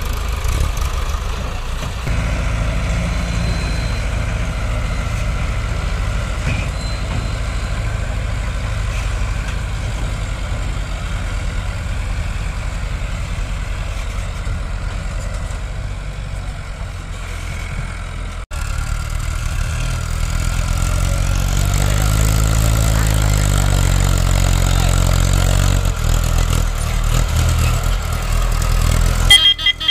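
Diesel engines of two Mahindra tractors working under load, towing a trailer loaded with sugarcane. The engine note bends up and down in pitch a little past the middle. A short high-pitched tone sounds near the end.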